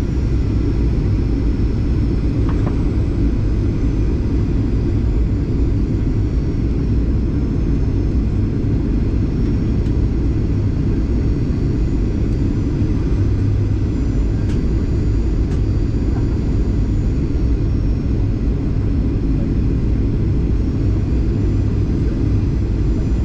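Airliner cabin noise during the landing approach: a steady low rumble of jet engines and airflow, with a faint high whine above it.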